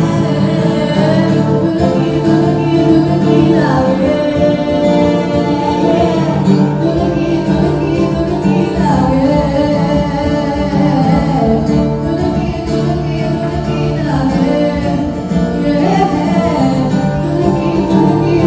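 Music: a song with singing over guitar, playing steadily.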